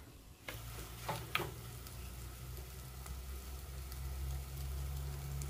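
Dry mutton sukka with grated coconut sizzling in a clay pot as it is stirred, with a few light spoon clinks in the first second and a half. A low steady hum runs underneath.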